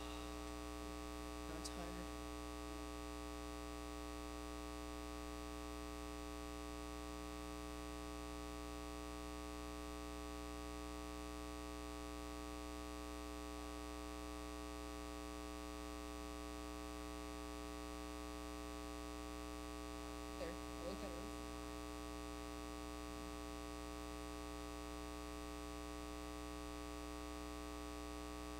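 Steady electrical mains hum with a buzzy stack of overtones, with faint brief voices about two-thirds of the way through.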